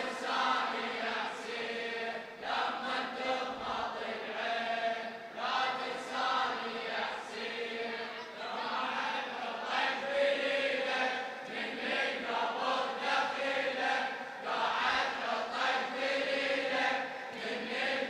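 A crowd of mourners chanting a Shia latmiya refrain together in chorus, many voices blended, with a regular beat about once a second.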